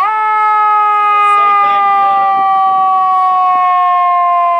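Fire truck siren wailing loudly. Its pitch jumps sharply up at the start, then slides slowly and steadily down.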